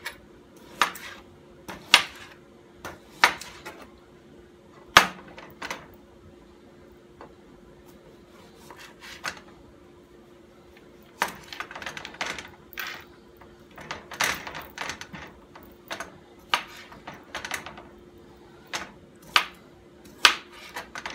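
Chef's knife slicing smoked pork sausage on a plastic cutting board: sharp knocks of the blade hitting the board. At first they come about one a second, then after a few quieter seconds they come in quicker runs, over a faint steady hum.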